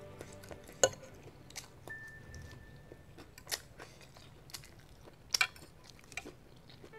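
Metal fork and spoon clinking against a ceramic bowl of noodle soup: a handful of sharp clinks, the loudest about a second in and a quick pair past the five-second mark, with soft eating sounds between.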